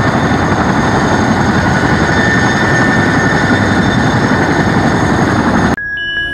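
Boeing Chinook tandem-rotor helicopter running on the ground: a loud, steady rush of turbine and rotor noise with a high turbine whine. Near the end it cuts off abruptly and a short chime begins.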